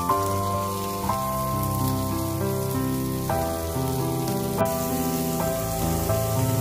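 Background music of slow, held notes that change every second or so, over a steady sizzle of battered food frying in oil on an electric griddle.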